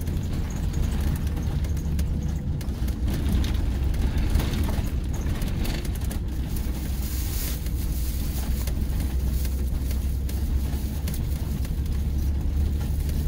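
Diesel engine of a Mercedes-Benz O-500RSD coach with a Modasa Zeus II body, running steadily with a deep low hum.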